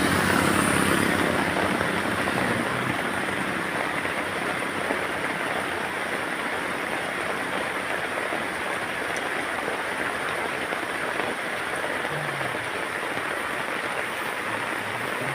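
Steady rain falling, an even hiss throughout. In the first two or three seconds a low engine hum fades away, as from a passing vehicle.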